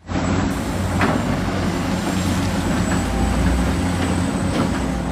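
Large Caterpillar 365C hydraulic excavator working in a dig: its diesel engine runs steadily under load with a heavy rumble, and a single knock about a second in.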